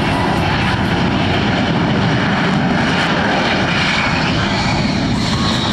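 F-35B fighter's single Pratt & Whitney F135 turbofan running loud and steady: a dense, unbroken jet noise.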